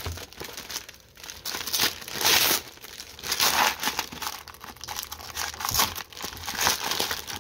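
Brown kraft packing paper being torn open and crumpled by hand, in irregular rushes of rustling and ripping, the loudest a little past two seconds in.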